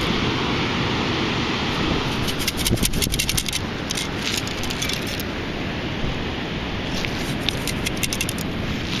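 Metal basket sand scoop being shaken to sift wet beach sand: bursts of rattling and scraping as sand and grit knock against the mesh, about two seconds in and again near the end, over a steady low rumble.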